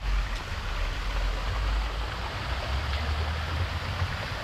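Steady rushing and splashing of water in an artificial pond's water feature, with a low rumble underneath.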